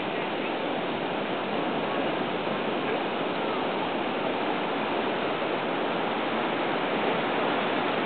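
Steady rush of water washing over the rocky shore, even and unbroken.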